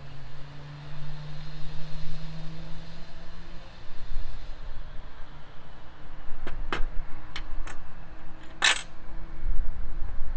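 Several sharp clicks and knocks of plastic parts being handled and fitted, ending in one loud snap near the end, over a low steady hum and rumble.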